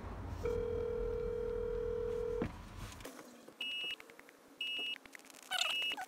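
A smartphone on speaker plays a ringback tone: one steady two-second ring while the call goes unanswered. About a second after the ring stops, short high beeps begin, about one a second.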